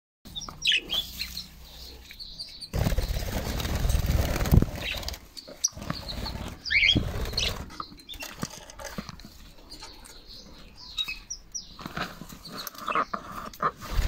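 Budgerigars chirping in short, scattered calls, with a loud rustling stretch of about two seconds a few seconds in.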